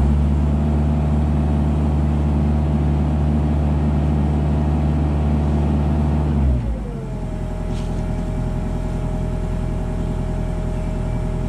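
Kubota mini digger's diesel engine revved up and held at high revs, then dropping back to a steady idle about six and a half seconds in.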